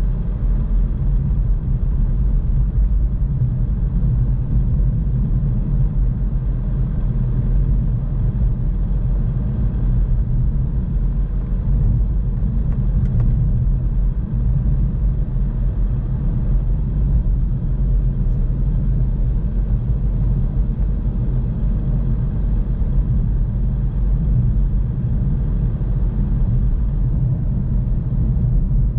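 A car driving along a road: a steady low rumble of engine and tyre noise that does not rise or fall.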